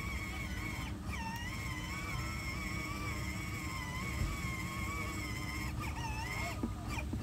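Battery-powered Thomas the Tank Engine ride-on toy's electric drive motor and gearbox whining steadily as it drives across grass. It cuts out about a second in, then picks up again with a rising pitch, and it cuts out near the end.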